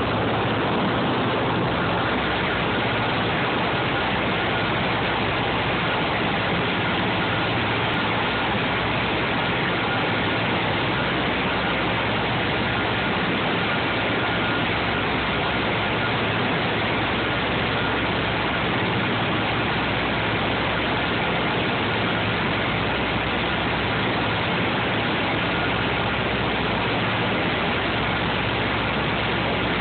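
Cabin noise of a DC-3 in flight: its twin radial piston engines and propellers drone steadily, with a low hum under a constant rush of air.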